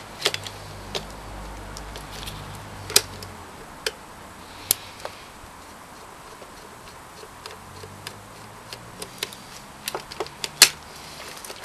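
Small metal and plastic parts of an old Panasonic tube video camera clicking and tapping as it is taken apart with a small screwdriver: irregular light clicks, with a sharper click about ten and a half seconds in. A faint low hum runs under the first three seconds.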